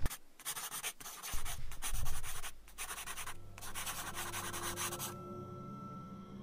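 Scratching, rubbing noise in several long stretches with short breaks, with a few dull low thumps about one and a half to two and a half seconds in. Faint steady tones come in about halfway.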